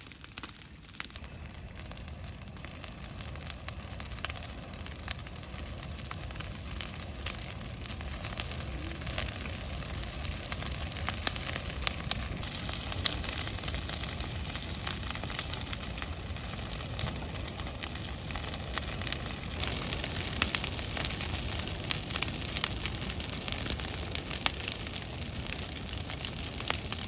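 Food sizzling as it fries in a hot pan, with scattered sharp crackles and pops over a steady hiss.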